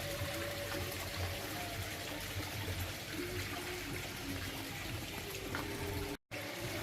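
Water trickling and splashing steadily from a pump outlet into a fish pond.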